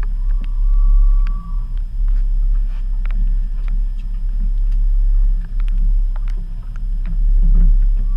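Steady low rumble aboard a small outboard-powered fishing boat, with scattered sharp clicks and knocks from gear being handled as a lingcod is brought into the landing net.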